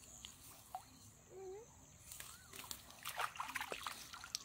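Faint water sloshing and splashing, with a few short chirping calls and scattered clicks in the second half.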